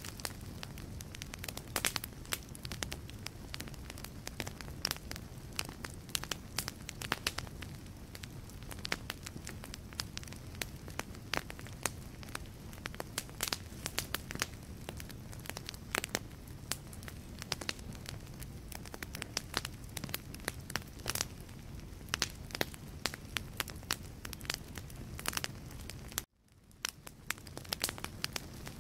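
Wood fire burning in a fireplace, crackling with many sharp pops and snaps over a steady low rumble of the flames. Near the end the sound cuts out suddenly and fades back in over a couple of seconds.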